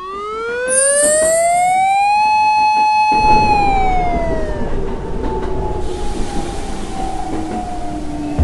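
Animated train sound effects. A pitched wail rises for about two seconds, holds, then falls away. About three seconds in, a passing train's rumble starts and runs on, with tones that slowly drop in pitch as it goes by.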